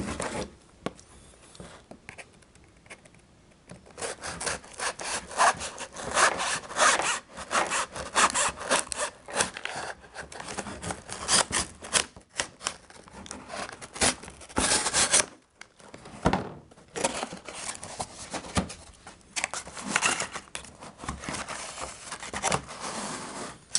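A cardboard package being cut open with a knife: the blade slices and scrapes through the packing tape and cardboard, with rustling of the contents. The scraping comes in irregular bursts after a quieter start.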